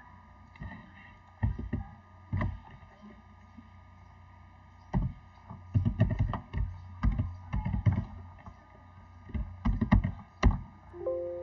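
Computer keyboard typing and mouse clicks: irregular bursts of keystrokes and clicks in quick groups with short pauses between them. A brief electronic tone starts near the end.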